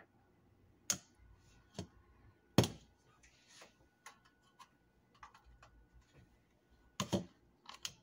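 Hands handling plastic kitchen containers at a countertop, giving a series of separate sharp clicks and knocks. The loudest knock comes about two and a half seconds in, and a cluster of clicks follows near the end.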